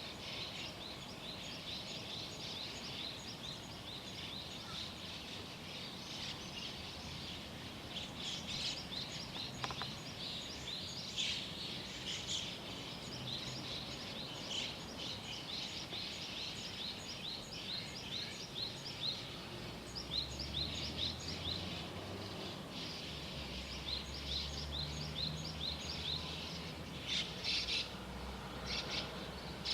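Small songbirds chirping and singing in a dawn chorus: many quick, repeated high chirps overlapping. A faint low rumble joins in past the middle.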